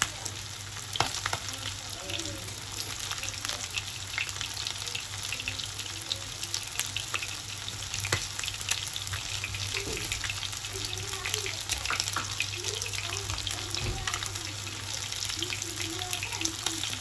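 Masala-coated chicken drumsticks sizzling in hot oil in a nonstick pan over a low flame, with a steady hiss and frequent small crackles and pops.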